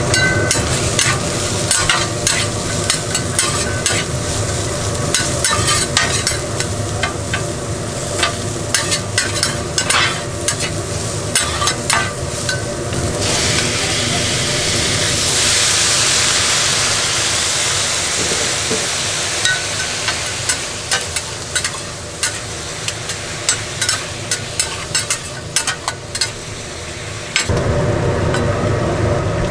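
Gopchang stir-fry sizzling on a hot griddle while spatulas clack and scrape in quick, uneven strikes. Partway through the clacking eases and the sizzle swells into a louder hiss, then the clacking picks up again.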